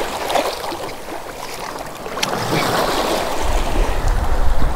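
Shallow surf washing and sloshing around a blacktip shark held by the tail in ankle-deep water. About two-thirds of the way in, a low rumble of wind on the microphone joins the water.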